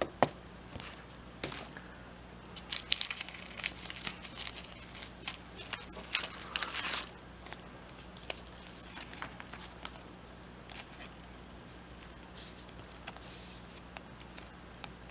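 Trading cards being slid into thin plastic sleeves and a rigid top loader: light plastic crinkling and small clicks and taps, busiest from about three to seven seconds in.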